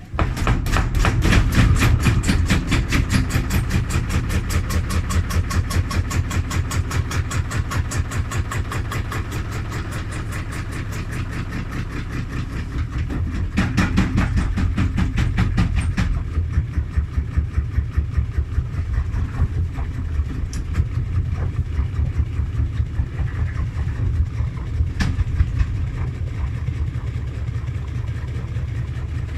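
Front-loading washing machine drum turning with a badly unbalanced load. The drum knocks rapidly and rhythmically over the motor's steady hum, starting abruptly.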